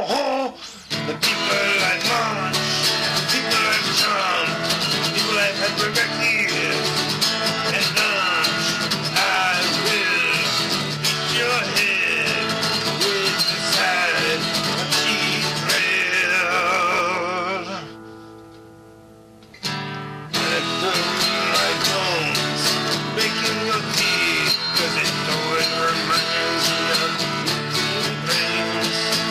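Epiphone acoustic guitar strummed in a steady rhythm, with a man singing over it. About eighteen seconds in, a sung note with vibrato gives way to the guitar ringing alone for about two seconds, then strumming and singing start again.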